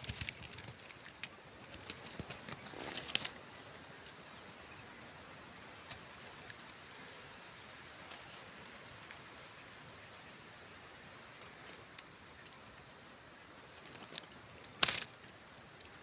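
Faint crackling and rustling of dry leaf litter as an anteater roots through it. There are two louder, brief rustles: one about three seconds in and one near the end.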